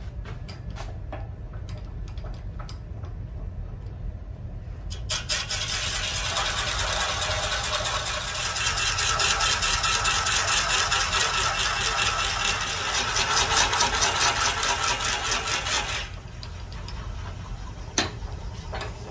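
Robust American Beauty wood lathe running with a steady low hum while a twist drill bit in the tailstock chuck bores into the end of a spinning oak vase blank. From about five seconds in, the cut is a loud, rough noise with a fast rattle, which stops abruptly about sixteen seconds in; a few light clicks come before it.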